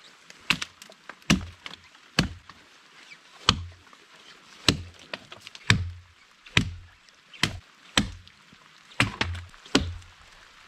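Wooden limbs being chopped: about a dozen sharp strikes, roughly one a second.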